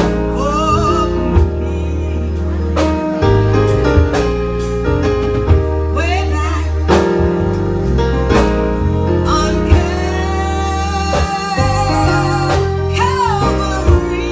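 Gospel music: singing over a band, with a deep bass line and regular drum hits.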